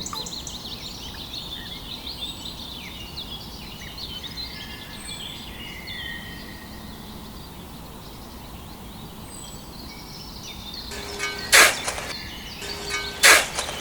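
Small birds chirping and twittering, many short high calls. Two short, loud, noisy bursts come near the end.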